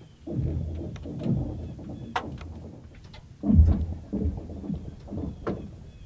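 Lake ice shifting against a rocky shore in spring: slabs grinding and crunching in a series of low, falling-pitched groans, with a few sharp cracks and the loudest surge about three and a half seconds in.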